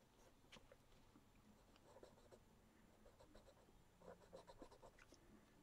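Faint pencil strokes scratching on sketchbook paper as letters are drawn, with a quick run of short strokes about four seconds in.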